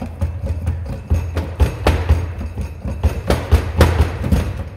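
Hydraulic shop press pushing a wheel bearing out of a hub knuckle under load: a steady low hum with irregular sharp cracks and clicks from the bearing and knuckle. The press sleeve is too small, so only the middle of the bearing is being forced out.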